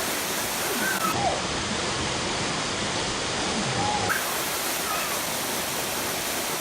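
Waterfall rushing steadily, a constant wash of falling water, with faint voices under it now and then.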